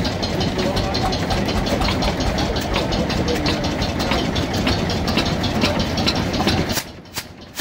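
Lister single-cylinder diesel generator set running just after a cold start, with a steady, rapid beat. Near the end the sound drops abruptly to a quieter, slower run of separate knocks, about two a second.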